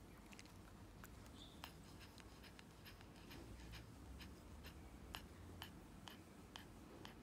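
Faint rapid breathing of a Maltese dog with tachypnea from pulmonary hypertension and heart disease. It is heard as small soft mouth clicks, irregular at first, then settling to about two a second.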